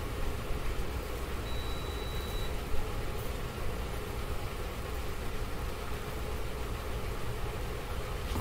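Steady low rumbling noise, with a thin high tone lasting about a second near the start and a brief knock just under three seconds in.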